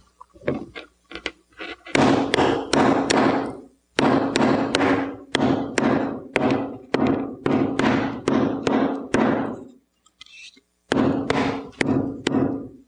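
Hammer striking a small resistor on a hard lab bench to smash it open: a run of sharp, loud knocks about two a second, each ringing briefly. A few lighter taps lead in, and the blows stop for about a second near the end before a few more.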